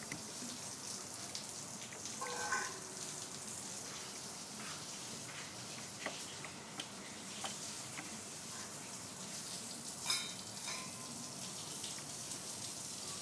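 Steady faint hiss with scattered light clicks, and two short ringing metallic clinks, one about two and a half seconds in and one about ten seconds in.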